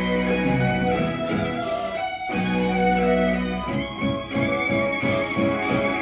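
Instrumental music led by plucked guitar notes over long held lower notes, with a brief break a little over two seconds in.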